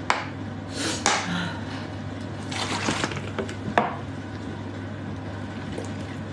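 Dishes and a plastic bottle being handled at the table: sharp knocks near the start, about a second in and near four seconds in, with some rustling around the three-second mark, over a steady low hum.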